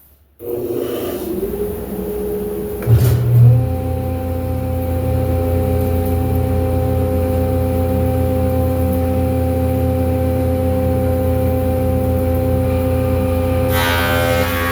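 Grizzly G0453 floor-model thickness planer switched on: its motor and cutterhead spin up over about three seconds, with a brief loud low hum as they come to speed, then run steadily. A rougher, noisier sound joins near the end.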